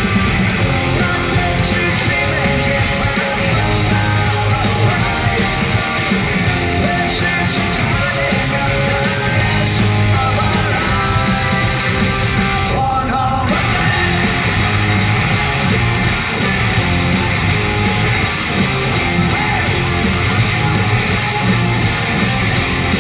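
Loud rock music with guitar and a singing voice, playing steadily.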